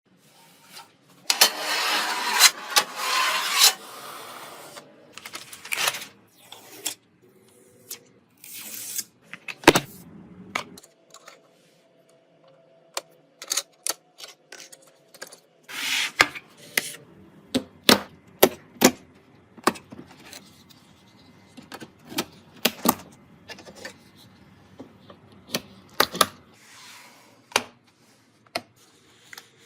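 Hands handling computer parts and their packaging: bursts of rustling and scattered sharp clicks and taps of plastic and metal.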